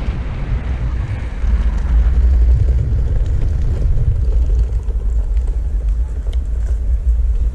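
Steady, loud, low rumble of wind buffeting the microphone and wheels rolling over the ground while riding a Backfire Ranger X2 electric all-terrain skateboard.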